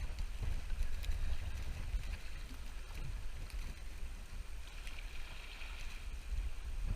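Strong wind buffeting the microphone: a low rumble that rises and falls with the gusts.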